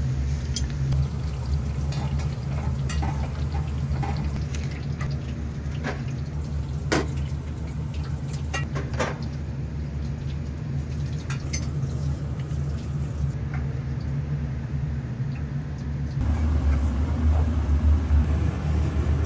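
Steady low hum with scattered clinks and knocks of dishes and utensils being handled during kitchen work; the hum grows louder near the end.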